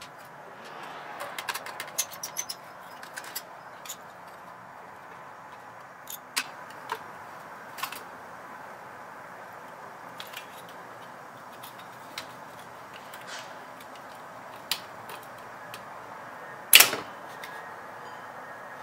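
Scattered small metal clicks and clinks of a screwdriver and screws as a graphics card's backplate and cooler are unscrewed and the card is handled, over a steady background hiss. One much louder clack near the end as the parts are pulled apart.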